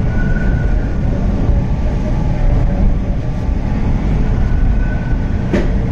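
Toronto subway train running past the station platform, heard from inside the car: a steady low rumble of wheels and motors with a faint thin whine that comes and goes. A single sharp click about five and a half seconds in.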